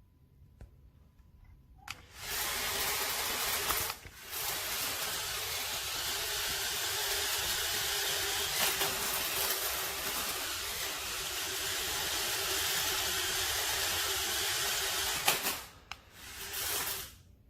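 Small electric drive motors and gears of a toy 4WD RC stunt car whirring steadily with a faint hum, starting about two seconds in, with a brief break soon after, then stopping, followed by a short burst near the end.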